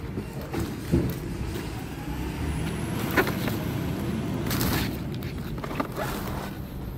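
Garbage truck's diesel engine running with a steady low rumble, with a few sharp metal knocks about one and three seconds in and a short hiss of air about four and a half seconds in.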